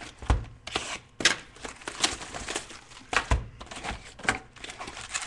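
Hands opening and handling a box of trading cards and its packs: a string of knocks, taps and rustles from cardboard and wrappers, with a few sharper thumps about a second apart.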